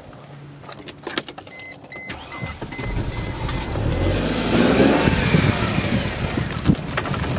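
Mercedes E320 engine being cranked again after stalling on a tank laced with laundry detergent, catching about four seconds in, revving up and running on. Before it catches, a dashboard warning chime beeps steadily for a couple of seconds.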